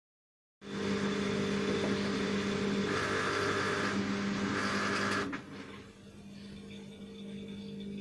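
Front-loading washing machine running an intermediate spin at 500 rpm: a steady motor hum and whine with the drum turning. About five seconds in it drops off abruptly with a click, then slowly builds again.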